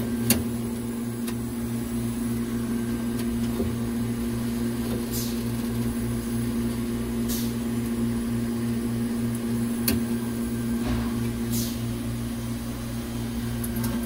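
Franke grill freezer's R404A compressor running with a steady electrical hum while the evaporator fans stand still, getting no voltage. A couple of light clicks and a few brief rustles from hands working inside the evaporator compartment.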